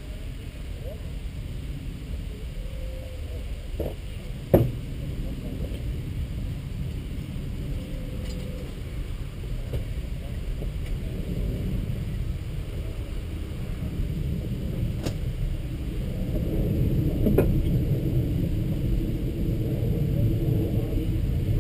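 Steady low rumble, with a sharp knock about four and a half seconds in and a few lighter knocks later, as camping gear is handled and loaded into an open car boot.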